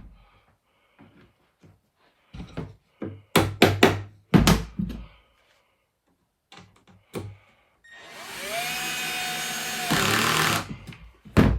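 A few sharp knocks as fittings are tapped into the cabinet carcass with a small hammer, then a power driver runs for about three seconds driving in a screw, its pitch rising as it spins up and then holding steady. Another knock near the end.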